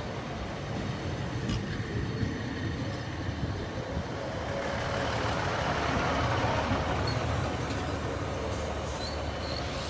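British Rail Class 153 single-car diesel multiple unit arriving and running slowly past close by, its underfloor Cummins diesel engine and wheels on the rails making a steady rumble that swells as the cab end passes.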